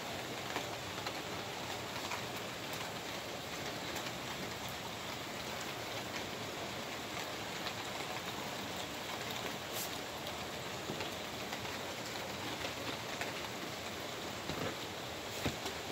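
Steady rain falling on a wet concrete patio: an even hiss with an occasional sharper drop tick.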